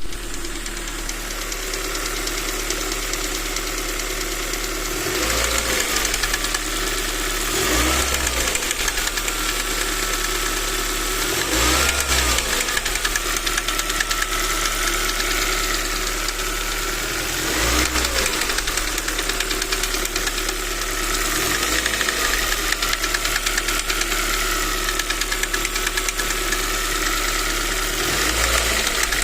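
Ford Mondeo Mk3 1.8 four-cylinder petrol engine idling with a fast, steady knock, blipped about six times so the revs briefly rise and fall. The source of the knock is unknown to the owner.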